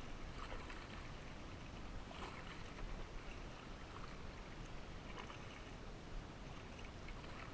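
Kayak being paddled: the paddle blades dip and pull through the water in a low wash, with a faint splash every second or two.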